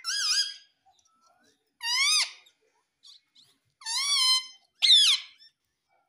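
Indian ringneck parrot giving four short, high squawks, each rising and then falling in pitch, the last dropping steeply.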